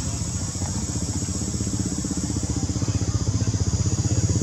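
A small motorbike engine running with a fast, even pulse, growing steadily louder as it draws nearer.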